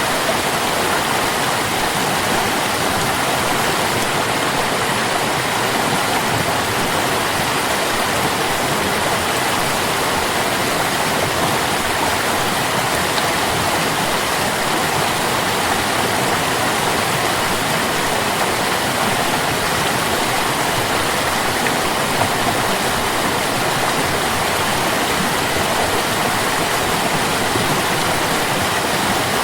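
Water stream flowing, a steady, unbroken rush of running water.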